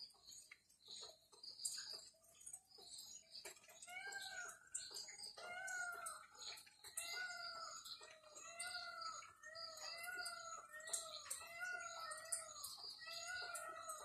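A chicken calling over and over in short notes that rise and fall, about one a second, starting about four seconds in. A faint high rapid ticking runs underneath.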